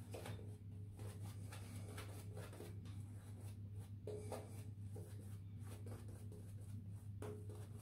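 Shaving brush, an Omega Evo with synthetic bristles, brushing lather over the face and neck: faint swishing strokes, about two or three a second, over a steady low hum.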